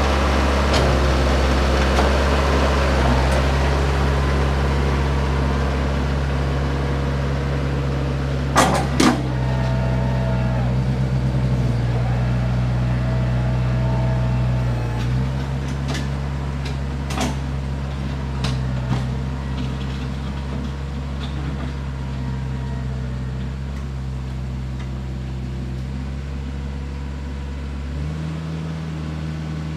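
Branson compact tractor's diesel engine running steadily while it drags a box blade over the ground. It fades slightly as the tractor pulls away. There are a couple of sharp clanks about nine seconds in and another around seventeen seconds, and the engine note shifts near the end.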